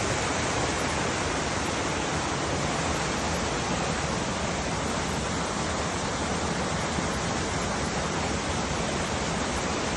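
Water rushing down a run of small waterfall cascades: a steady, unbroken rush.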